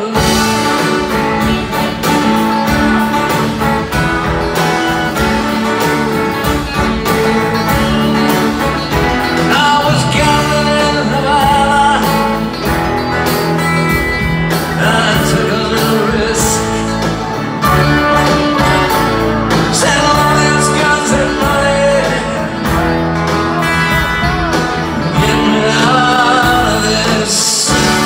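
A live string band playing an upbeat country-rock number, with banjo, acoustic and electric guitars, upright bass, drums and keyboards.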